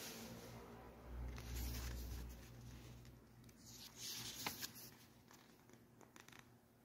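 Pages of a small paper instruction booklet being handled and flipped: faint rustling, with a low handling rumble in the first half and a crisp page snap about two-thirds of the way through.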